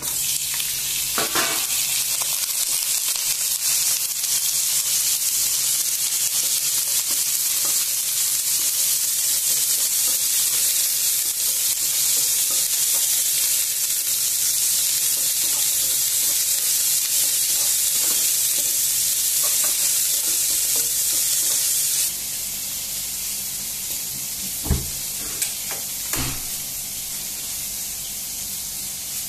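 Diced fatty meat sizzling in hot oil in a non-stick wok, starting abruptly as it is tipped in onto fried garlic, and stirred with a wooden spatula. The sizzle steps down a little about 22 seconds in, with two sharp knocks near the end.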